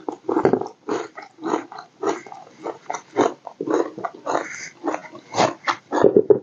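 A person eating close to the microphone: wet, smacking chewing of a mouthful of egg curry and rice, in quick irregular chews.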